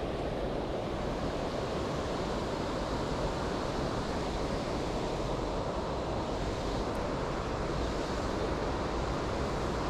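Steady rush of river water pouring over a weir, a constant even roar with no breaks.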